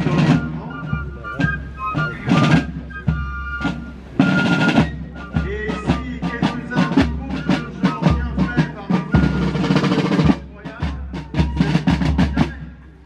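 Military side drums played by a marching drum corps: rapid strokes and drum rolls beating a march cadence.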